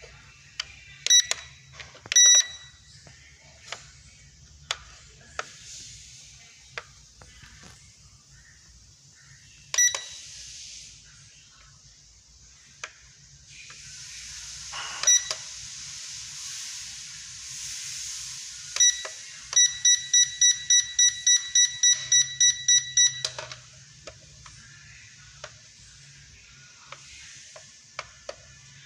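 Electronic beeps from a toy quadcopter drone set: a few single and double beeps, then a fast run of about fourteen beeps at roughly four a second. Before the run there is a stretch of hiss, and small handling clicks come and go.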